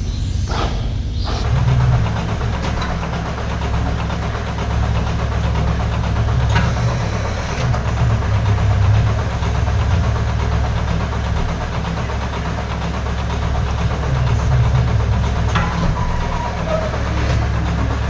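Brief scattering and scuffing as bedding is spread on cow stalls, then a steady mechanical hum and hiss of milking parlour machinery running while milking units are attached.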